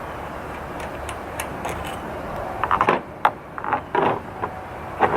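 Small engine parts being handled and fitted onto the carburetor: a few light ticks, then louder clicks and knocks from about two and a half seconds in. Under them is a steady hiss that drops away around three seconds in.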